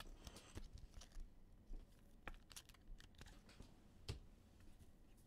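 Faint, scattered clicks and light rustling from small things being handled, with a sharper click about four seconds in.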